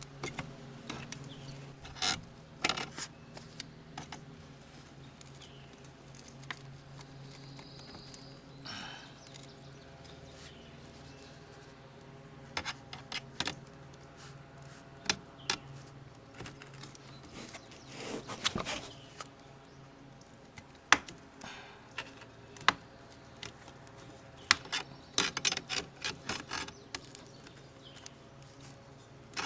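Irregular scrapes and sharp clicks of a hand scraper chipping old tar sealant off a camper roof, coming in quick clusters toward the end. A low steady hum underneath fades out about halfway through.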